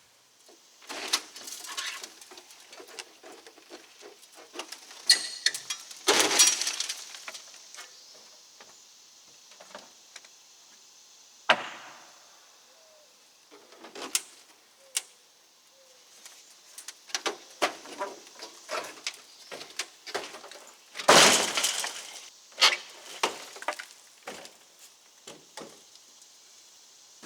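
Irregular crashing, cracking and clinking of debris being broken apart and dropped during deck demolition. The bigger crashes come about six seconds in and about twenty-one seconds in, with a sharp knock in between and scattered smaller clatters.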